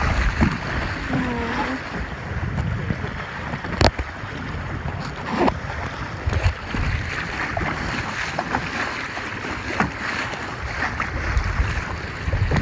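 Strong wind buffeting the microphone over choppy water, with waves splashing and a sharp knock about four seconds in.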